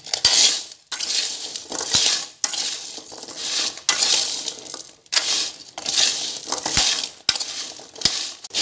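Metal spoon stirring chestnuts through coarse salt in a wok, a gritty scrape and rattle in repeated strokes about once a second, with sharp clicks of nuts and spoon against the pan.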